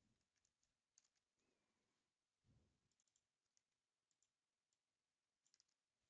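Near silence, with faint scattered clicks of typing on a computer keyboard and a couple of soft low thuds.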